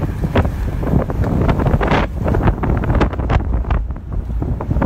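Strong tornado wind battering the microphone: a heavy, loud low rumble with many short, sharp crackles throughout.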